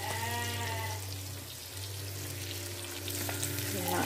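Salted tilapia frying in hot oil in a wok: a steady crackling sizzle, with a spoon turning the fish in the oil near the end. A brief pitched sound comes near the start and again near the end.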